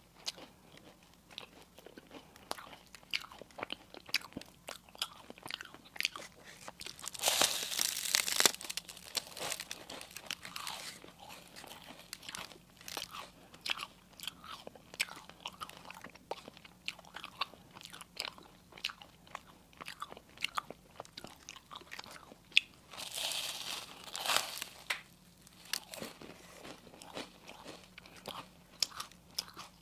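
Close-miked eating: a person biting and chewing crisp food, with many small crunches throughout and two louder spells of crunching, one about a quarter of the way in and one about three quarters through.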